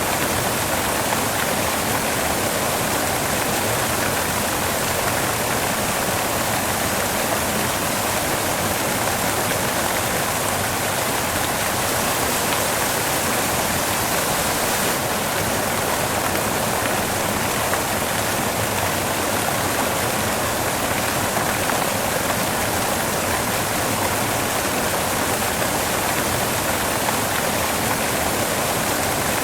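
Steady white noise: an even, unbroken hiss.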